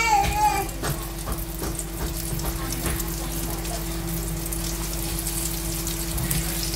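Floured chicken pieces shallow-frying in oil in a pan: a steady sizzle with frequent small pops and crackles, over a steady low hum.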